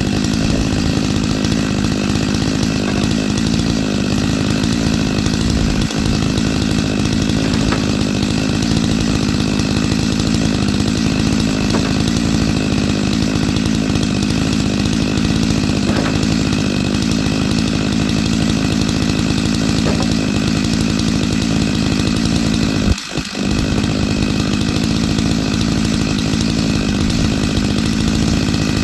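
Stihl MS 462 two-stroke chainsaw running steadily while ripping firewood lengthwise with a ripping chain on a 25-inch light bar. The note is loud and even, with one momentary dip about three-quarters of the way through.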